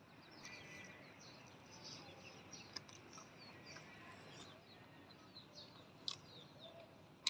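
Faint chirping of small birds over a soft background hiss, with a few sharp clicks, the loudest at the very end.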